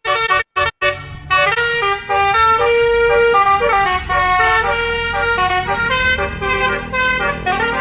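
Basuri telolet horn on a vehicle playing a quick melody, its note changing every fraction of a second.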